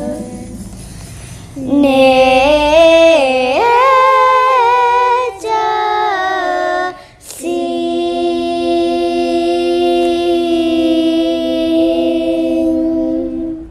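A small group of young girls singing together, with sliding, ornamented phrases followed by one long held final note.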